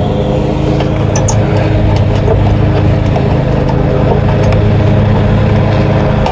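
Lawn mower's small petrol engine running steadily, with a few light clicks over it.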